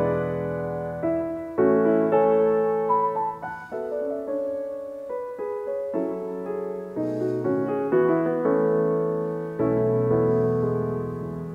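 Background solo piano music, its chords changing every second or two.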